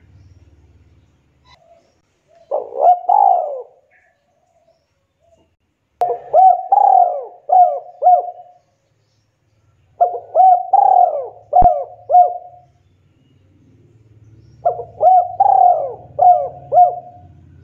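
Spotted dove cooing: a short two-note call, then three phrases of four or five coos each, a few seconds apart.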